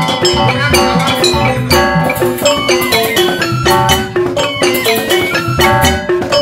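Balinese joged bumbung gamelan playing: bamboo xylophones sound a quick run of struck notes over regular hand-drum (kendang) beats.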